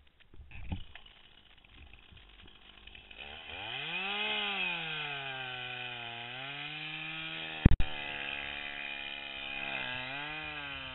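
Chainsaw engine starting to sound about three seconds in, revving up briefly, then settling to a fast, wavering idle. A sharp knock about three-quarters of the way through.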